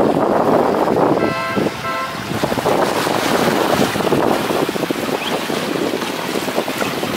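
Wind buffeting the microphone over small waves washing and splashing against shoreline rocks. A short steady tone sounds briefly a little over a second in.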